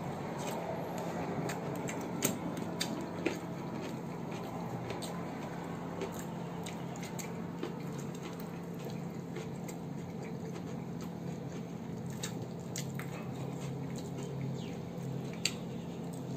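People quietly eating, chewing shawarma and chips, with scattered small clicks from handling the food, over a steady low hum.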